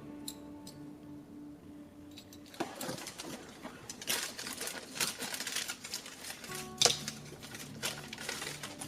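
Background music, then from about two and a half seconds in a busy run of rustling and clicking from the calendar's packaging and small plastic toy pieces being handled. The single loudest sound is a sharp click near the end.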